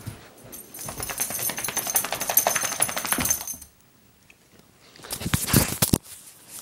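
Metal tags on a dog's collar jingling fast for about three seconds. After a short pause come loud bumps and rubbing right against the microphone as the dog's face comes up to it.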